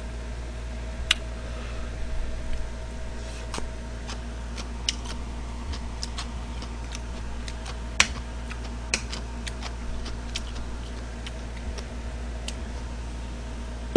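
Chopsticks and a spoon clicking and scraping against a plate of fried rice: scattered, irregular light clicks, a few sharper than the rest, over a low steady hum.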